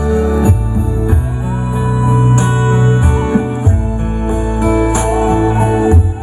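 Background music: an instrumental passage of a song between sung lines, with guitar over a steady bass and percussion.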